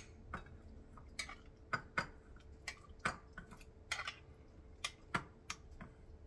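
Faint, irregular light clicks and taps of utensils against dishes, about two or three a second.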